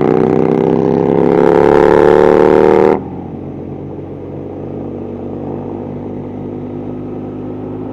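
BMW R1100RT boxer-twin motorcycle engine running at highway speed with wind rush, its pitch creeping up for about three seconds. Then the sound drops suddenly to a quieter, steady engine drone.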